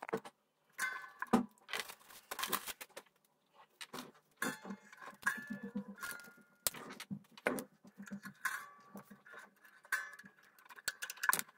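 Mandolin strings and tuning pegs being handled while restringing: irregular clicks, taps and metallic jangling of the steel strings against the tuners, with short ringing tones of the strings now and then.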